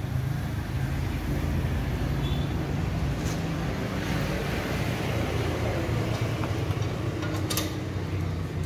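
A steady low mechanical rumble in the background, with a couple of light metallic clicks of a spanner working on the diesel engine's injector area, about three seconds in and again near the end.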